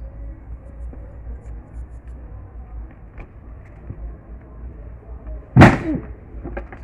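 A steady low rumble, then a single loud, sudden thump about five and a half seconds in.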